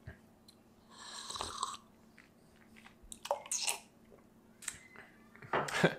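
A person slurping a sip of espresso from a small cup about a second in, followed by swallowing and a few short clicks.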